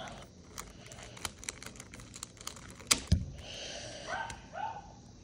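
Plastic clicks and snaps of a magnetic speed cube being taken apart, its pieces popped out by hand, with one sharp, loud snap about three seconds in. Two short yelping calls follow near the end.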